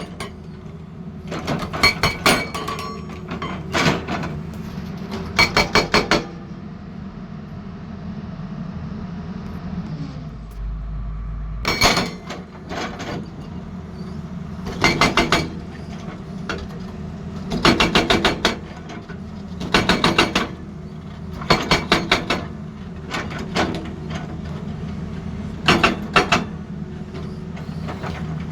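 Excavator-mounted hydraulic breaker hammering in short bursts of rapid blows, one burst every couple of seconds with a pause near the middle, over the steady hum of the machine's diesel engine.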